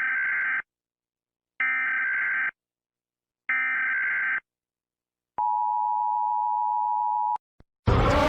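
Electronic alarm tones: three identical beeps about a second long and a couple of seconds apart, then one steady lower tone held for about two seconds. A loud blaring horn cuts in just before the end.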